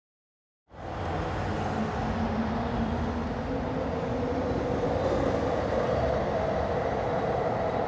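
Steady rumble and hum of a Class 397 electric multiple unit standing at a station platform, cutting in abruptly under a second in.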